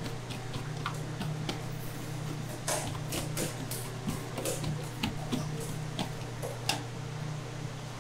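Steel cleaver blade pressed down through a crunchy slab of puffed purple rice candy, cutting it into bars: a string of irregular crisp clicks and cracks over a steady low hum.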